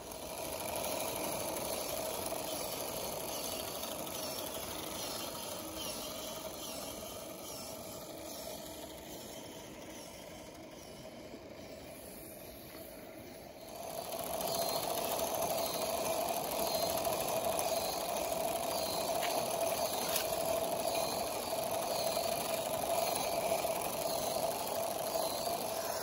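Small live-steam garden-scale train running along the track. From about halfway the running turns louder and steadier, with a light regular ticking about once a second.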